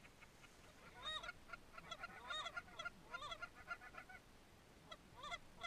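Canada geese honking, faint, a cluster of overlapping honks from about one to four seconds in and one more near the end.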